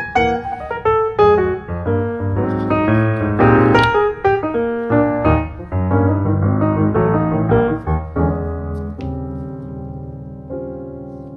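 Piano music: a busy passage of quick notes, then a held final chord from about eight seconds in that slowly dies away.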